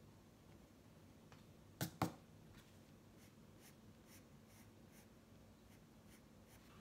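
Faint pencil strokes scratching on sketchbook paper as an outline is drawn, with two sharp taps close together about two seconds in.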